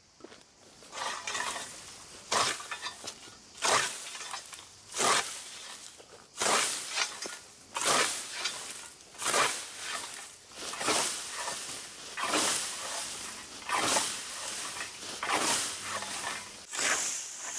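Hand scythe mowing tall grass: the blade swishing through the stalks in a steady rhythm, about one stroke every second and a half, a dozen strokes starting about a second in.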